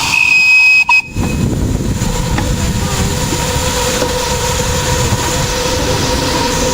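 Miniature railway train running along the track with a steady low rumble. A brief high whistle-like tone sounds in the first second.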